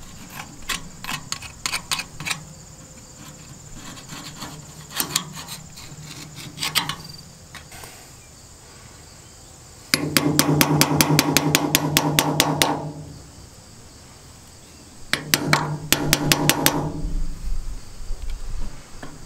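Rapid hammer taps on a screwdriver driving out the old lower gearbox seal on a Bush Hog 305 rotary cutter. There are two runs of quick strikes, several a second, ringing metallically; the first, about ten seconds in, is the louder. Lighter scraping and tapping come before them.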